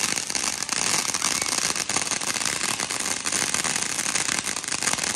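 Fireworks crackling: a dense, rapid, unbroken run of small sharp pops, loud and even throughout.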